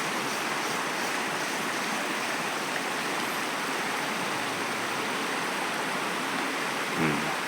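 Rushing river water: a steady, even hiss of flowing current with no change in level.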